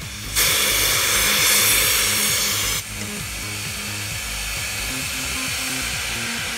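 A passing steam locomotive lets out a loud hiss of steam. The hiss starts abruptly about half a second in and cuts off suddenly after about two and a half seconds, over background music.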